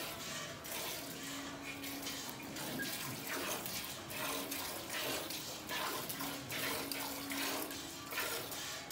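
Cow being milked by hand: rhythmic squirts of milk hitting the milk in a metal pot, about two a second as the hands alternate.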